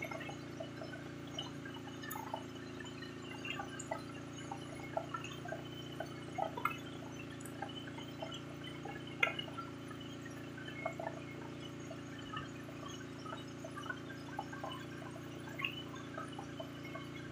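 Water dripping and splashing in small irregular drops as a wet fishing handline is hauled in hand over hand over the side of a wooden boat, over a steady low hum.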